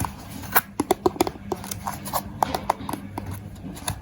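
Hands working kinetic sand into shapes: irregular soft taps and clicks, several a second, over a faint steady low hum.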